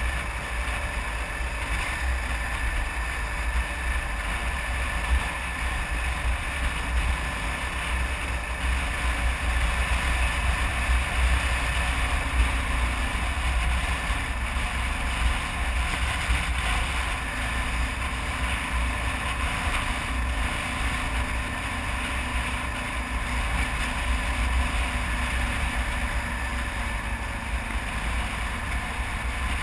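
A 2009 Kawasaki KLR 650 dual-sport's single-cylinder engine running steadily under way, mixed with heavy wind rumble on the microphone, swelling and easing a little with speed.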